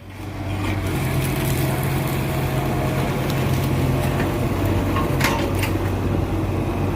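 Volvo EC15 mini excavator's diesel engine running steadily, with a few short sharp knocks about five seconds in.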